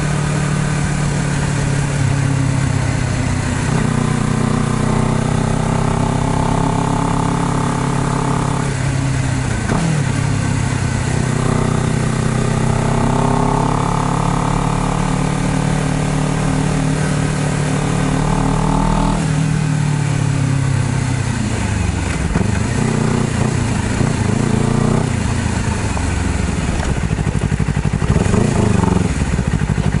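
Honda CBR250RR motorcycle engine under way, pulling up through the revs twice with the pitch dropping sharply after each climb, about 9 and 19 seconds in. It then runs at low, uneven revs as the bike slows toward a stop.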